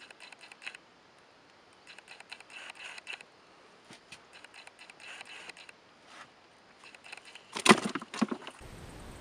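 Handling noise on a fishing boat: scattered light clicks and rustles, then a few loud knocks about seven and a half seconds in as the camera is moved.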